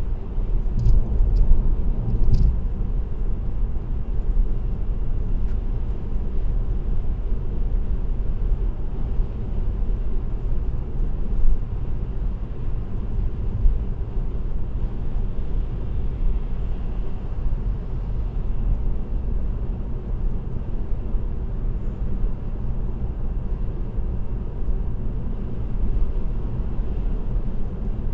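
Steady low road and engine rumble of a car cruising at highway speed, heard from inside the car, with a few short sharp clicks in the first couple of seconds.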